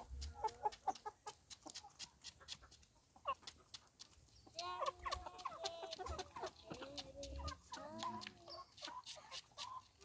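Poultry clucking in a series of short, wavering calls from about four and a half seconds in. Many sharp clicks and taps run throughout and are loudest in the first second.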